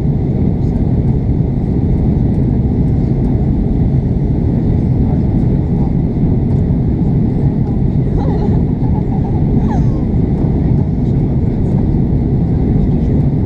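Steady cabin roar of an Airbus A340-600 in flight shortly after takeoff, heard from a seat over the wing. It is the low, even rush of its four Rolls-Royce Trent 500 engines and the airflow past the fuselage.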